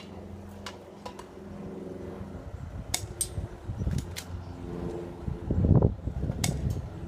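Spring-powered airsoft pistols being cocked and fired: sharp clicks and snaps at irregular intervals, some in quick pairs, over a steady low hum.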